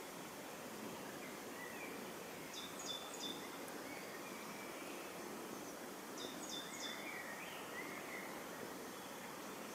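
Steady outdoor hiss with small birds calling: a quick group of short, high chirps about three seconds in and again at about six and a half seconds, and fainter wavering notes in between.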